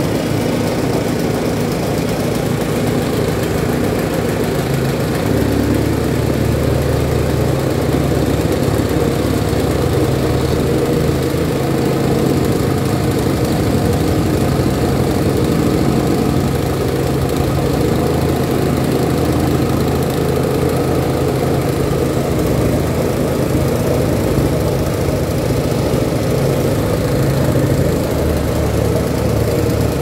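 Champion PC9045F petrol plate compactor running steadily under load, its vibrating plate compacting a bed of crushed-stone screenings.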